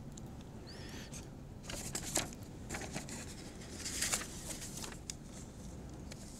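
Quiet room tone picked up by the podium microphones, with scattered faint clicks and rustles, the clearest about two and four seconds in, and a brief faint squeak about a second in.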